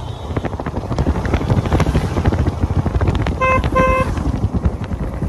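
Wind buffeting the microphone of a moving motorcycle, over road and engine rumble. About three and a half seconds in, a vehicle horn gives two short beeps.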